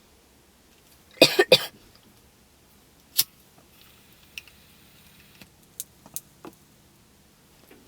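A short fit of three or four harsh coughs about a second in, the kind that follows a hit of marijuana smoke from a pipe. Several single sharp clicks follow at uneven intervals.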